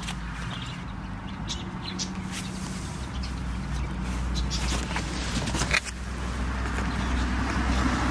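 A low engine drone that grows louder through the second half, with scattered clicks and scuffs over it.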